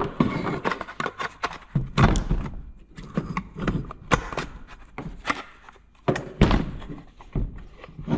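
The metal body of a truck bunk heater and its hard plastic shell knocking and clattering against each other as they are handled and fitted together by hand: a run of irregular thunks and light rattles, the heaviest knocks about two seconds in and again about six and a half seconds in.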